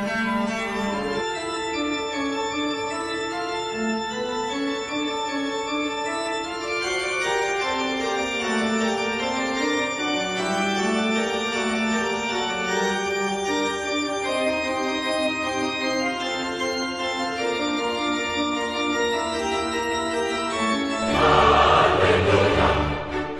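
Slow background music of long held chords with a slowly moving melody, growing louder and fuller near the end.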